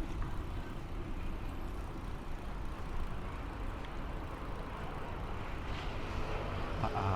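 Steady road and traffic noise while riding a bicycle, with a brief pitched hum near the end.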